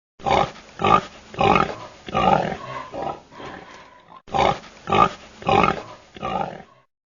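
A pig grunting in a string of short grunts, about nine in all, in two runs with a brief break a little past the middle.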